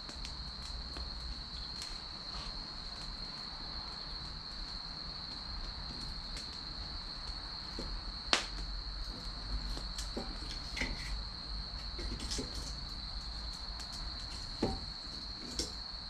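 Chestnut and cherry firewood burning and crackling, with scattered sharp pops, the loudest about eight seconds in and again near the end. A steady high insect trill continues underneath.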